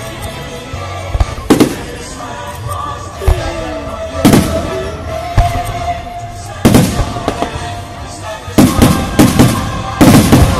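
Aerial firework shells bursting with sharp bangs, single reports spaced a few seconds apart, then a quick run of bangs near the end, with music playing underneath.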